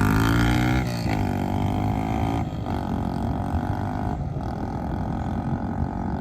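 Electric sander with 80-grit sandpaper running steadily, stripping old paint off a motorcycle gas tank. Its pitch rises in the first second, then holds steady, with brief dips about two and a half and four seconds in.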